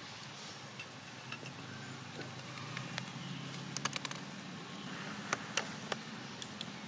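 A steady low motor hum that grows stronger about two and a half seconds in, with a few sharp clicks around the middle and near the end.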